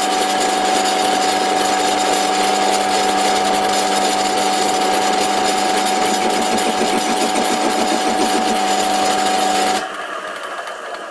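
Antique Karger metal lathe running at 425 RPM with a tool bit cutting the tip of a metal point: a loud, harsh cutting noise with a steady ringing tone. About ten seconds in the cut stops suddenly and only the quieter running of the lathe is left.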